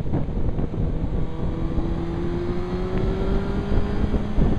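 Suzuki GSX-R 1000's inline-four engine running under heavy wind buffeting on the helmet-mounted microphone, its pitch rising slowly from about a second and a half in as the bike accelerates.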